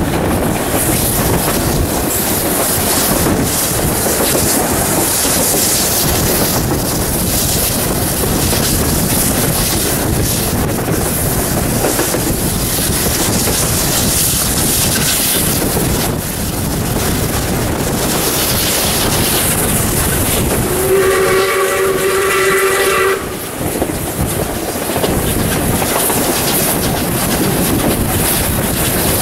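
South Australian Railways 620-class steam locomotive 621 working up a grade, its exhaust and running gear making a steady dense noise. A chime steam whistle sounds once for about two seconds, about two-thirds of the way through.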